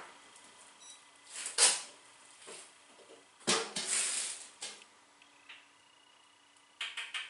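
Light handling noises on a benchtop: a few scattered soft knocks and rustles, a short hissing rustle about three and a half seconds in, and a quick run of clicks near the end, as a small bottle and parts of an oil-test stand are handled.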